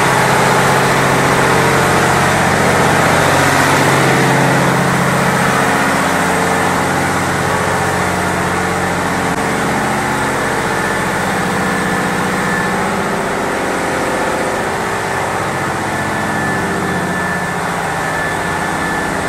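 Steady loud drone of diesel engines and machinery running in a ship's engine room, with a low engine hum that eases slightly about a third of the way through.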